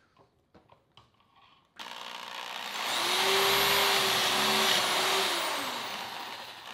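Corded electric drill boring a pocket hole through a board held in a pocket-hole jig. The drill starts suddenly about two seconds in, runs loudest in the middle, then its pitch drops as it winds down near the end; small handling clicks before it starts.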